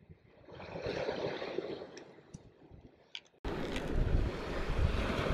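Wind on the microphone and small waves washing onto a shingle beach, starting abruptly about three and a half seconds in and running as a steady noise. Before that there is a faint rustle and a few light clicks.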